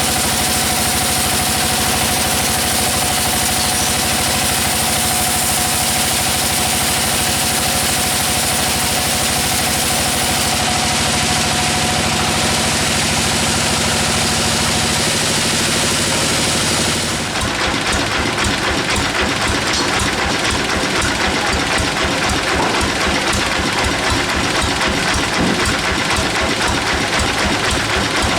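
Engine-driven sawmill machinery running steadily with a high whine. About two-thirds of the way through, the whine stops and the engine runs on with a rapid, even pulsing.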